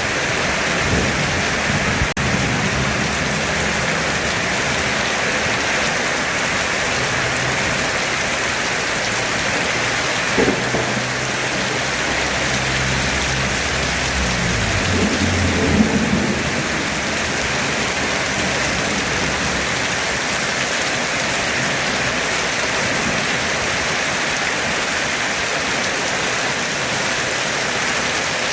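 Heavy rain pouring steadily, with thunder rumbling low through the first half and swelling loudest a little past the middle before fading out.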